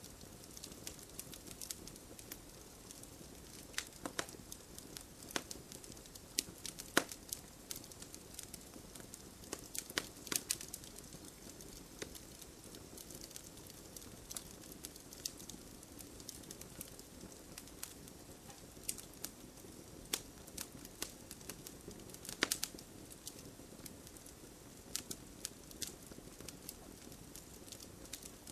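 Wood fire burning with a steady low hiss and irregular sharp crackles and pops, a few louder pops scattered through.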